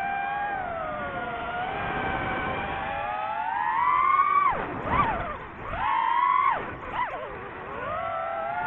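DJI FPV quadcopter's motors and propellers whining, the pitch following the throttle. It holds steady, climbs to a peak about four seconds in, then drops sharply and climbs back twice near the middle, as the throttle is cut and punched again.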